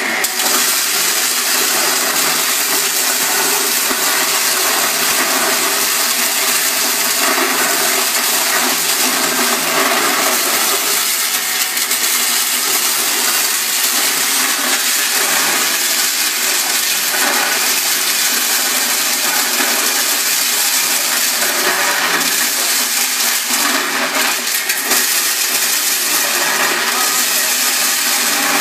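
Small two-outlet electric corn thresher running steadily under load as ears of corn are fed in, the motor's hum mixed with the rattle of kernels being stripped off the cobs and thrown out.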